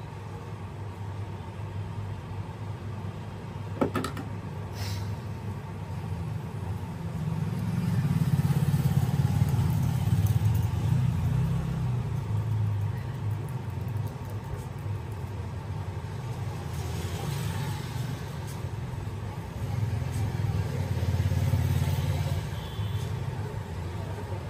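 Low background rumble that swells twice for a few seconds at a time, with one sharp click about four seconds in.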